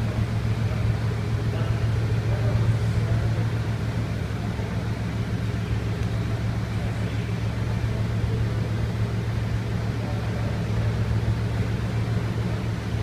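Bugatti Veyron Grand Sport Vitesse's quad-turbo W16 engine idling, a steady low hum with no revving.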